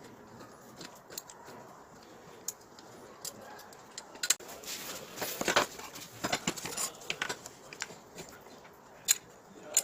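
Scattered clicks and light clinks of hard parts being handled. About halfway through comes a busier stretch of clattering and scraping.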